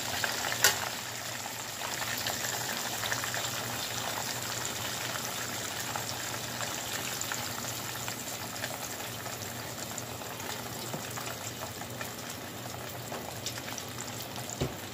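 Breaded shrimp deep-frying in hot oil in a saucepan: a steady, dense crackling sizzle. One sharp click stands out about a second in.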